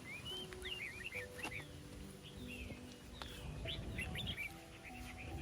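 Small birds chirping and twittering in quick, sweeping notes throughout.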